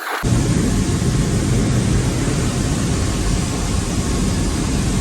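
Strong wind buffeting the microphone: a loud, low, fluttering rumble that starts suddenly a moment in.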